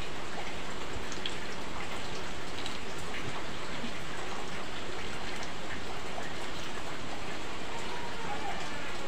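Battered banana pieces deep-frying in hot oil in a wok: a steady sizzle with many small scattered pops.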